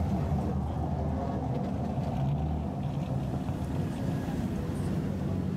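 Steady low rumble of car engines as cars drive slowly past one after another, a large SUV passing close by.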